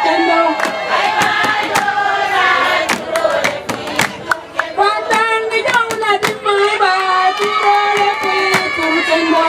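A group of women singing together, several voices holding and sliding between notes, with frequent sharp percussive knocks over the singing.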